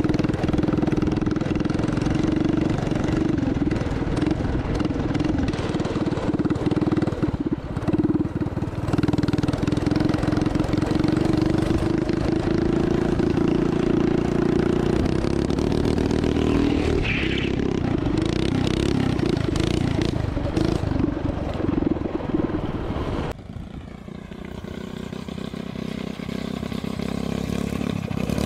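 Motorized drift trike's small engine running hard, heard up close as a steady drone that slowly climbs in pitch. About 23 seconds in the sound drops abruptly to a quieter, more distant engine note that rises in pitch.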